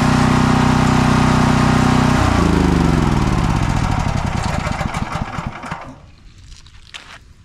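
Champion 100891 dual fuel portable generator's single-cylinder engine running steadily, then switched off about two seconds in: its pitch falls as it winds down, and it stops about six seconds in, followed by a few faint clicks.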